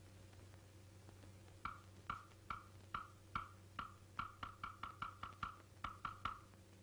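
A run of short, hollow wood-block knocks on an early sound-cartoon soundtrack, over a steady low hum. They begin about two seconds in at two or three a second, quicken to about five a second past the middle, and stop shortly before the end.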